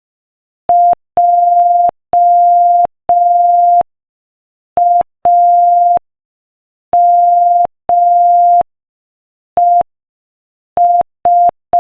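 Morse code sent as a single steady beep tone at 5 words per minute, keyed in short dots and long dashes with clean silent gaps between letters.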